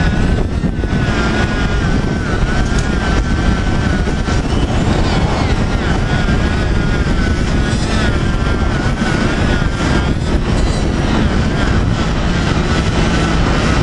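Corded handheld grinder buffing the rubber of a conveyor belt to prepare a splice, its motor running steadily with a whine that wavers slightly in pitch.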